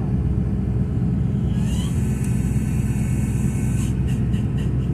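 Douglas DC-3's radial piston engines running steadily, heard from inside the cabin as a deep, even drone while the aircraft rolls along the runway. A high hiss rises over the drone for about two seconds midway.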